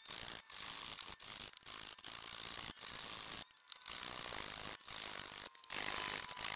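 Flat metal hand file rasping along the edge of a hardwood stool top, in about nine quick push strokes, each under a second, with short breaks between them.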